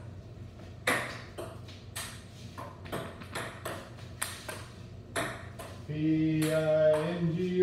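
Ping-pong ball clicking back and forth off the table and paddles in a rally, about two hits a second. From about six seconds in, a person's voice joins, singing held notes over the hits.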